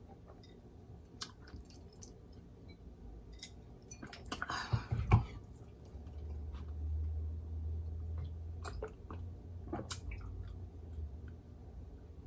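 Close-miked eating sounds: quiet chewing with small mouth clicks and smacks, and one louder rustling burst about five seconds in.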